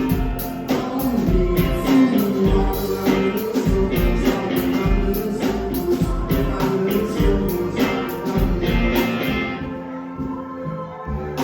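Live rock band playing a song, with drums keeping a steady beat under bass and guitar. Near the end the drums and cymbals drop out for about two seconds, leaving the bass and guitar, then come back in.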